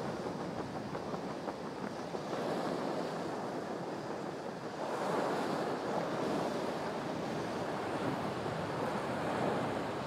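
Waves washing on the shore and wind, a steady rushing noise that swells a little about five seconds in. It is picked up through a shotgun microphone inside a furry blimp windshield, with hardly any low wind rumble.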